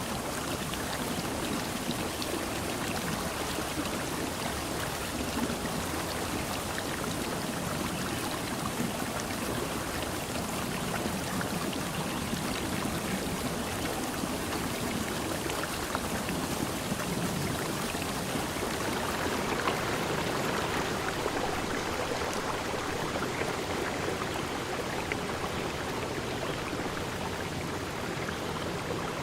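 Running water rushing steadily, like a forest stream.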